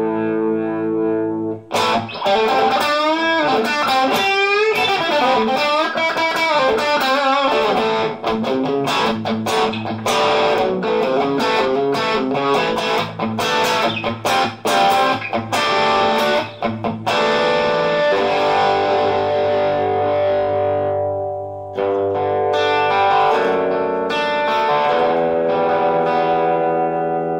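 Electric guitar, a Fender Road Worn Telecaster with a Kinman HX noiseless bridge pickup, played through a Kemper Profiling Amp amp profile. A held chord rings, then about two seconds in comes a quick lead passage with string bends and vibrato and many picked notes. Ringing strummed chords follow in the last third and fade near the end.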